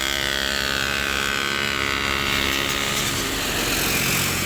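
Motor vehicle driving past close by: a steady engine hum with a whine that falls slowly in pitch as it goes by, the engine note dropping away about three seconds in.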